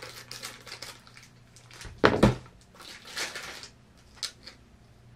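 Thin plastic packaging crinkling as it is pulled open around small plastic toy plates, with scattered light clicks and one louder thump about two seconds in.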